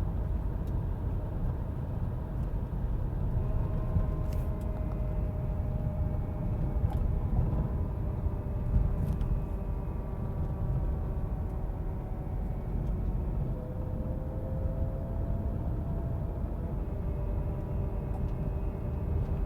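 Subaru under way, with steady road and engine rumble and a thin whine over it whose pitch drifts slowly up and down with speed. The whine is the unexplained noise the owner wants diagnosed.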